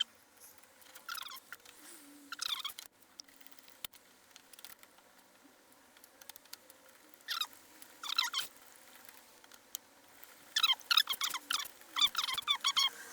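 High-pitched chirping squeaks, a few at a time at first, then a rapid flurry near the end.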